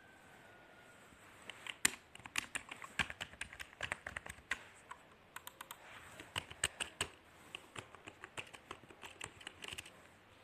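Typing on a faux-mechanical membrane computer keyboard: a fast, uneven run of key clicks starting about a second and a half in.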